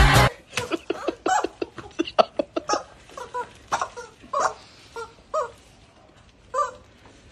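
Women laughing and squealing in short separate bursts, with a few quick sharp clicks near the start. Background music cuts off just after the start.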